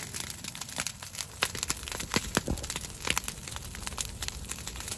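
Dry, dead cattails burning, crackling with irregular sharp pops a few times a second.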